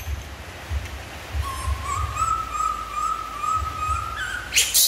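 A macaque giving one long, high, slightly wavering call lasting about three seconds. Low thuds sound underneath, and a brief loud rustle comes near the end.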